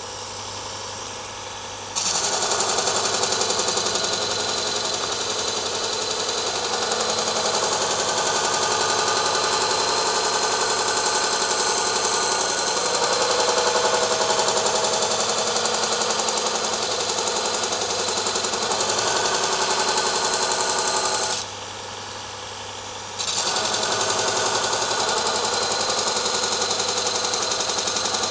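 Robert Sorby ProEdge belt linisher running, then from about two seconds in a carving axe held in a grinding jig is pressed against the coarse belt: a loud, steady hiss of steel being ground as the flat bevel is taken down to the edge to raise a burr. Near the end the grinding stops for about two seconds, leaving only the machine running, then starts again.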